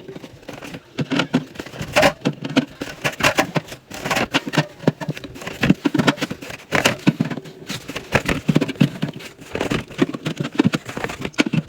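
Soda and energy-drink cans and bottles being stacked into a drink fridge, played sped up: a quick, irregular run of knocks, clinks and scrapes.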